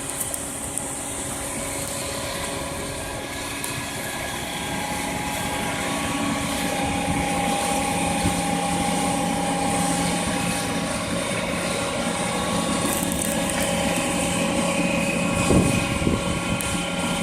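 A heavy engine running steadily, a continuous droning hum over a rumble, with a brief louder knock near the end.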